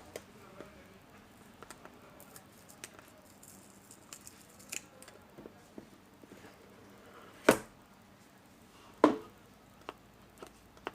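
Handling noises from smartphones and their boxes: scattered light clicks and rustles, with two sharp knocks about seven and a half and nine seconds in.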